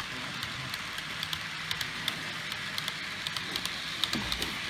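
HO-scale model freight wagons rolling along the track: a steady rolling hiss with quick, irregular clicks of the metal wheels on the rails.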